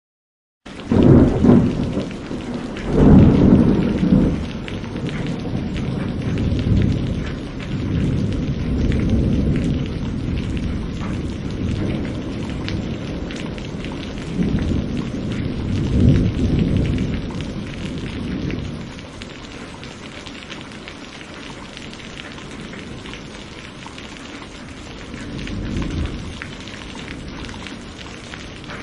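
Thunderstorm: steady rain hiss with rolling thunder. It starts abruptly under a second in with two heavy thunder rumbles, another loud roll comes about sixteen seconds in, and the thunder eases to a lighter rumble near the end while the rain keeps on.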